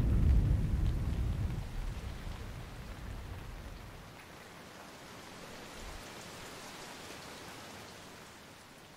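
A low rumble of thunder dying away over the first few seconds, leaving steady rain.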